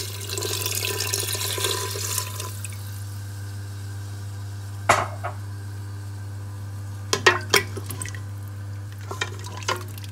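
About two litres of water poured into a steel pot of fried mutton trotters and masala, splashing for the first two and a half seconds. Then a wooden spoon stirs the pot and knocks against it, a single knock about five seconds in and a few quick knocks later on, over a steady low hum.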